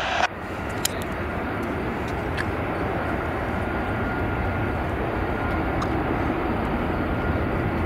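Airbus A350's Rolls-Royce Trent XWB turbofans running at low taxi thrust: a steady jet rumble that swells slightly, with a faint thin whine coming in about three seconds in.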